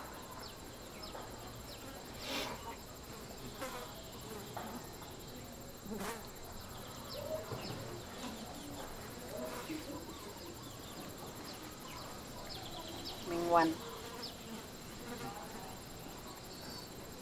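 Insects buzzing, with a thin, steady high-pitched hum and scattered faint chirps. A short, louder call stands out about three-quarters of the way through.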